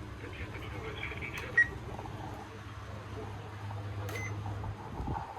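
A low steady hum with a short, sharp electronic beep about a second and a half in and a fainter beep near the end.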